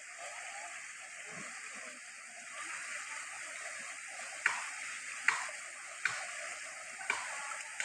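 Steady rush of flowing floodwater. From about halfway through, four sharp clicks or taps about a second apart.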